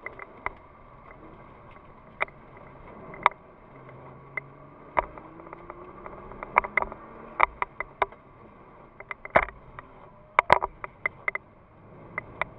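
Inside the cabin of a Nissan GT-R on a wet track: the engine runs under a steady wet-road hiss, its pitch rising for a couple of seconds before easing off. Many sharp, irregular taps and clicks sound through it and are the loudest thing heard.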